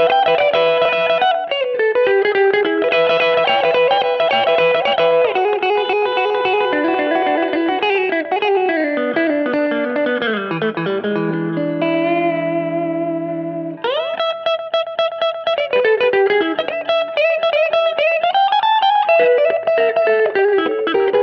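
Connexion Telecaster-style electric guitar played through a Mooer GE300 Lite amp modeller in rockabilly style: fast picked single-note runs with slides, a chord left ringing for about two seconds about halfway through, then quick picking again.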